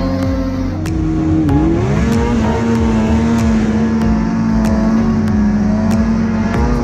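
Snowmobile engine running under throttle; its pitch drops about one and a half seconds in, then climbs back up and holds steady at high revs.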